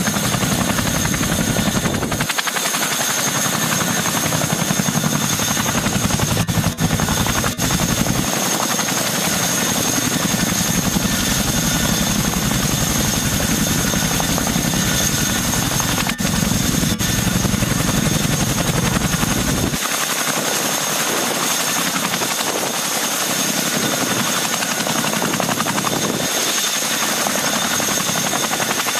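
Boeing CH-47 Chinook tandem-rotor helicopter running on the ground with both rotors turning: a steady high turbine whine from its twin turboshaft engines over loud rotor noise.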